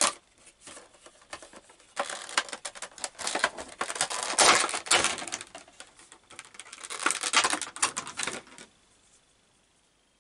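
Crinkling and rustling of a Funko Pop's cardboard box and clear plastic insert as the vinyl figure is taken out: a dense run of crackles and clicks from about two seconds in that stops shortly before the end.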